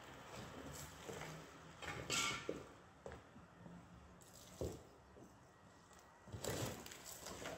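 Faint crunching footsteps on railway-track ballast and a few short hisses of an aerosol spray-paint can, over a low steady rumble of passing traffic.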